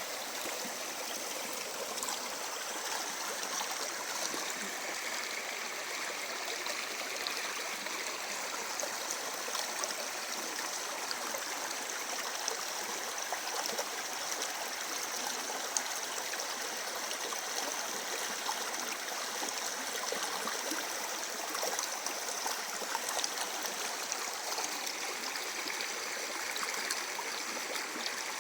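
A small river flowing and gurgling steadily over stones, with many small splashes and trickles.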